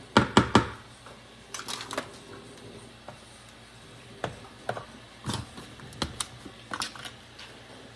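A spoon tapping and scraping against a tin can and a plastic mixing bowl while canned pumpkin is scooped out: a quick run of sharp taps at the start, then scattered clicks.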